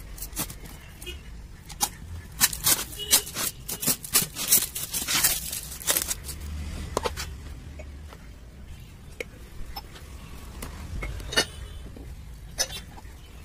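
Brown packing tape being snipped with scissors and ripped off a sealed plastic bucket: a quick run of sharp crackling rips, thickest in the first half, then sparser rustles and clicks.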